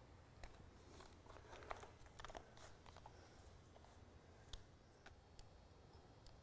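Faint rustling and light clicks of heavy marine canvas fabric being handled and worked, most of it in the first half, then a few isolated ticks.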